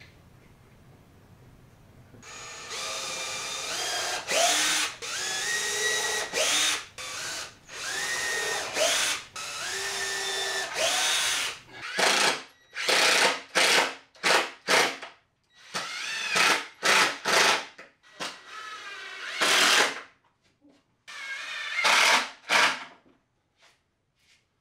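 Cordless drill driving screws into a plywood panel. It starts about two seconds in as a series of one-to-two-second runs, each spinning up in pitch, then turns to shorter, separate bursts from about halfway.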